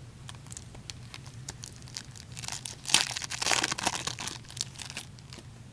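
A foil trading-card pack wrapper being crinkled and torn open, with scattered light clicks from handling the cards; the crinkling is thickest and loudest in the middle.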